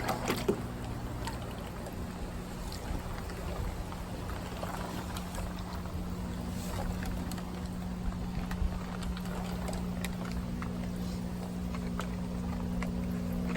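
Steady electric hum of a pump, with water trickling and small splashes and knocks over it.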